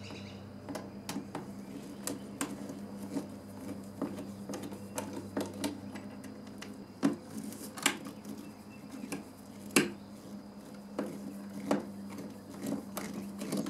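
Irregular clicks and knocks of a screwdriver, copper wires and a duplex receptacle against a plastic electrical box as the wires are pushed in and the receptacle is screwed into place, over a steady low hum.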